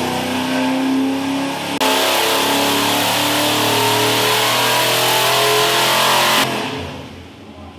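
Chevy 307 small-block V8 running flat out on an engine dyno, pulled toward 5,500 rpm on its stock valve springs. It is heard first through the control-room window, then louder and brighter beside the engine from about two seconds in. About six and a half seconds in the throttle is closed and the engine drops away quickly.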